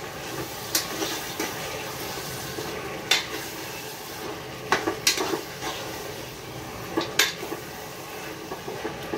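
Mutton and onions sizzling in oil in a pot while being stirred together with a spoon, with a steady frying hiss and a few sharp clicks and scrapes of the spoon against the pot. The onions are only being softened, not browned.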